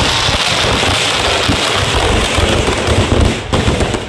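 Firecrackers packed into a burning Ravana effigy going off in a dense, continuous crackle of rapid pops mixed with heavier thumps, with a brief dip near the end.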